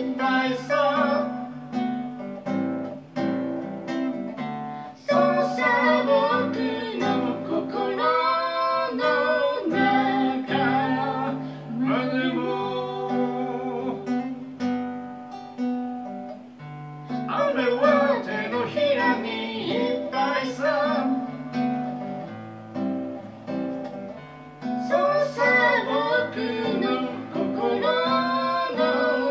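A man singing a Japanese song in phrases while playing an acoustic guitar.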